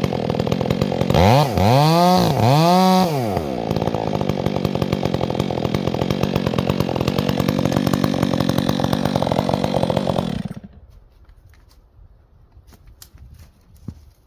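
Chainsaw engine running, revved up and down three times in quick succession about a second in, then running steadily until it cuts off suddenly about ten seconds in. After that only faint scattered ticks and crackles remain.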